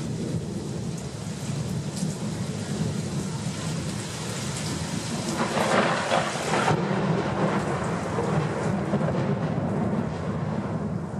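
Thunderstorm: steady rain falling with thunder rumbling low underneath, and a louder rush of sound about halfway through.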